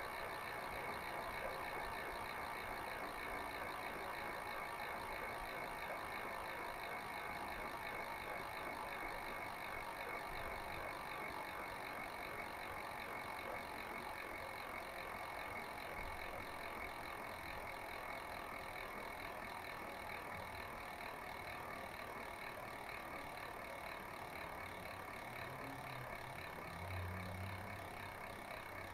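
DT Swiss CSW RA 1.0 rear wheel freewheeling, its freehub ratchet buzzing steadily as the wheel coasts and slowly growing quieter. A brief low rumble comes near the end.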